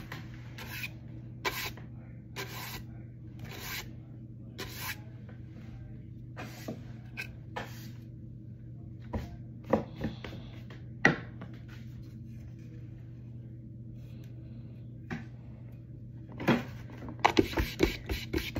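Scattered light scrapes and clicks of a stiff-bristled brush being handled, over a steady low hum. A quick run of clicks and rustles comes near the end.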